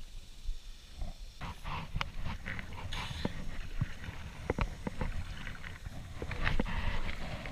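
Kayak paddle being handled, knocking and clicking irregularly against the plastic sit-on-top kayak, with some water splashing.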